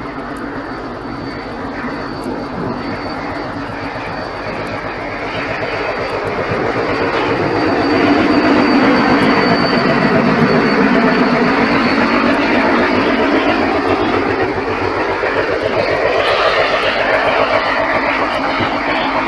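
A diesel locomotive hauling a commuter train approaches and passes close by, its engine drone growing louder to a peak about eight seconds in. The passenger coaches then keep rolling past loudly.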